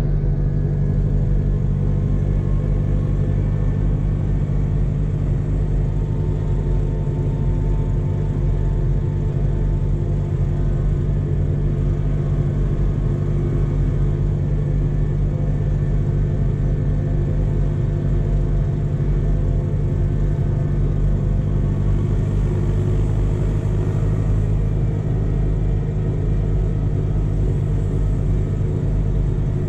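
Tractor engine running at a steady road speed, heard from inside the cab: an even low drone with a faint higher whine above it.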